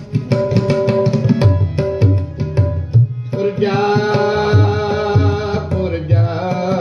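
Kirtan music: a harmonium plays a melody of held notes over a steady tabla rhythm. About halfway through, a singing voice comes in over them.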